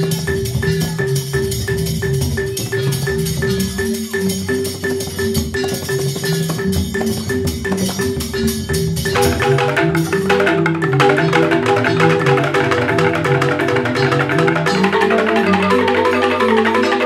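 Balinese bamboo gamelan of the joged bungbung type playing an instrumental tabuh: tuned bamboo xylophones struck in fast, even strokes over a moving low melody and a held note. About nine seconds in, the texture grows denser and brighter.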